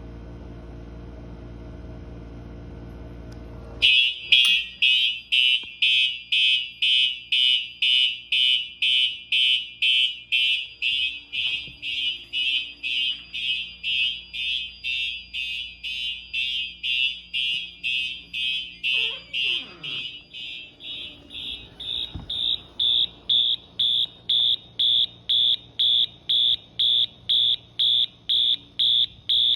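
A steady low hum, then about four seconds in the fire alarm system goes into alarm from the Bosch F220-P smoke detector test: a loud, high-pitched beeping, about two beeps a second, that keeps going.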